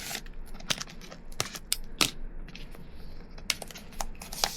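Irregular sharp clicks and light crinkles of a packaged sketchbook being handled, with fingernails tapping and picking at its wrapping.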